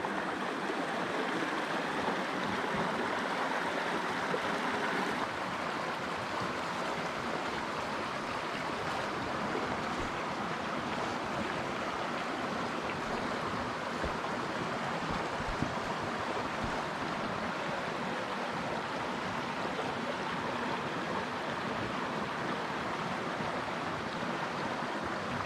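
Creek water running: a steady, even rush of flowing water.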